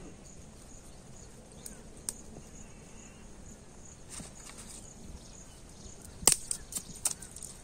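Dry twigs and sticks clicking and cracking as they are handled and pushed under the pot on a stone hearth, with the loudest crack about six seconds in and a few more just after. Insects chirp steadily and high-pitched in the background.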